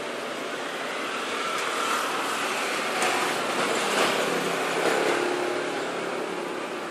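A motor vehicle passing close by amid street traffic noise, its sound swelling to a peak about four seconds in and then fading.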